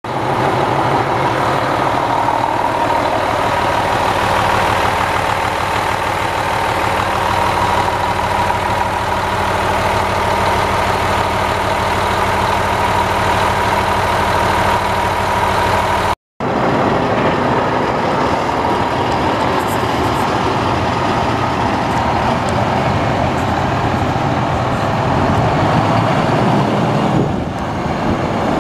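The Cummins ISM 10.8 L inline-six diesel engine of a 2010 International 8600 semi truck running steadily, without revving. There is a brief break about sixteen seconds in, after which the sound comes back noisier and rougher.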